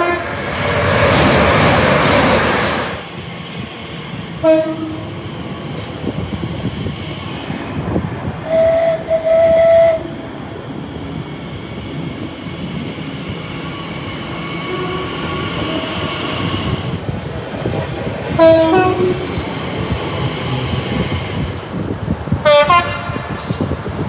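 Trains running on the line sounding two-tone horns in several short blasts: one at the very start, another about four and a half seconds in, a longer two-note blast around nine seconds, and more near the end, over the steady rumble of the train. A loud rush of noise comes from about one to three seconds in.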